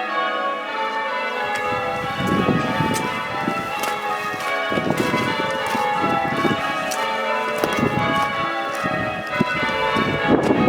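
Front six bells of a church tower change ringing a Minor method on six bells: a continuous stream of overlapping bell strikes in a shifting order.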